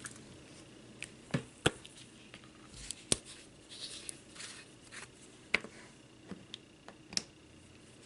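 Faint, scattered clicks and taps of a small plastic squeeze bottle of glossy glaze being handled, about six sharp ticks spread over several seconds as its tip and nozzle are worked by hand.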